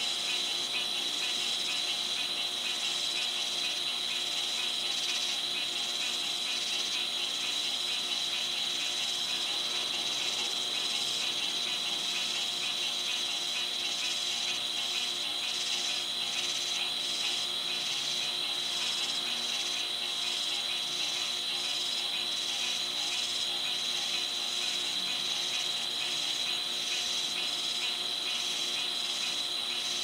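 Night insect chorus: a steady high-pitched trill that never stops, with a second, higher insect call pulsing in a quick regular rhythm over it.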